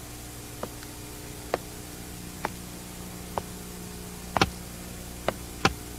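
Slow, measured footsteps: hard boot heels clicking on pavement about once a second, over a steady low hiss and hum.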